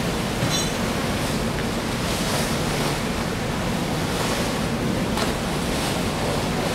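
Sea swell washing along the ship's side and around an approaching passenger tender, with wind buffeting the microphone. A steady low hum runs underneath.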